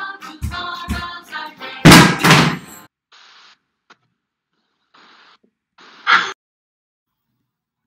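A song with a beat ends under two dull thumps. About two seconds in there is a loud double knock, then faint rustles and one short sharp knock at about six seconds.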